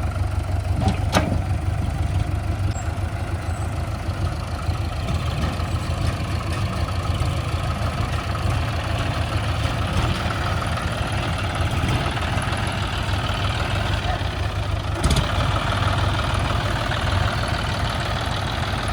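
Heavy diesel machinery engine running steadily with a deep drone, with a brief knock about a second in and another a little before the end.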